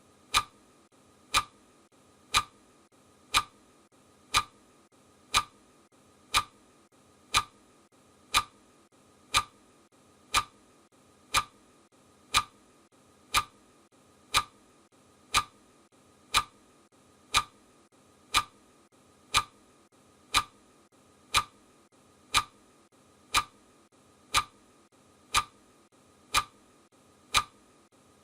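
Clock-tick sound effect ticking steadily once a second, each tick a short sharp click.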